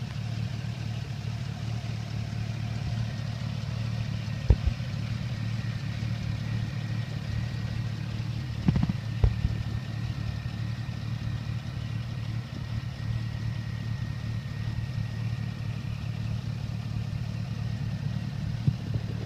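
2010 Chevrolet Camaro SS's 6.2-litre V8 idling steadily, heard close up from the open engine bay, with a faint steady high whine over the engine note. A few brief knocks stand out, once about four seconds in and twice around nine seconds.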